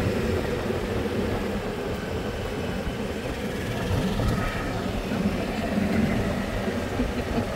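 Steady rumble and road noise of a moving open golf cart, with wind on the microphone.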